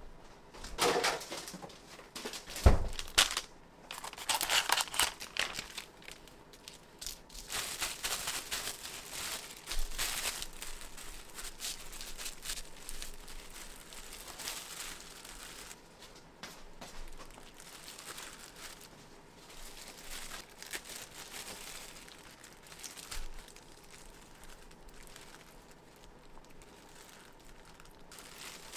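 Packaging crinkling and rustling as it is handled, in irregular bursts, with one sharp knock about two and a half seconds in.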